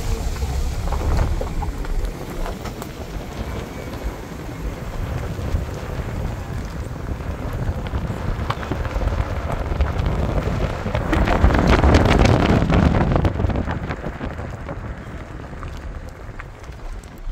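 Wind and rain: a steady rushing noise with wind rumbling on the microphone, building to a louder gust about eleven seconds in.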